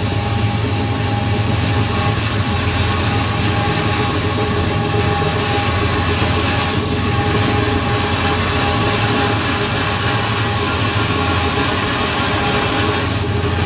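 Band saw running steadily, its blade cutting through a short round log section fed by hand.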